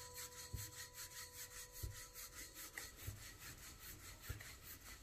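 Wooden rolling pin rolling out flattened paratha dough on a flour-dusted stone countertop. A faint, rhythmic rubbing at about three to four strokes a second, with a soft low knock about every second and a quarter.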